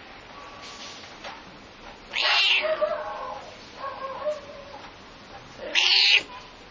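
A pet cat meowing loudly twice, about two seconds in and again near the end, with a softer call in between. It is the cat's slightly angry voice, set off by a dog barking nearby.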